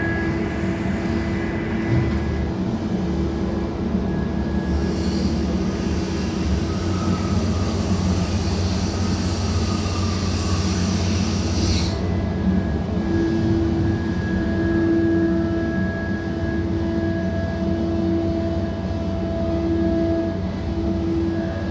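Steady drone of a harbour crane's engine and hydraulics working a clamshell grab over a ship's hold, with a low hum throughout. A hiss runs from about four to twelve seconds in, and a humming whine swells and wavers in the second half.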